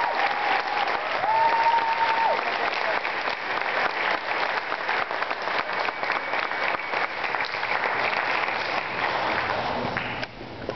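Theatre audience applauding: dense, steady clapping, with a few voices calling out in the first two seconds, dying down near the end.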